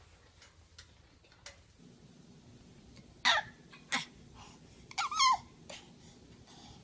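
A baby giving short excited squeals, three of them in the second half, the last one longer with a pitch that wavers up and down.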